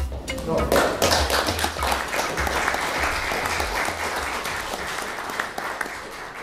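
Audience applauding: many people clapping together, building up quickly and slowly dying away toward the end.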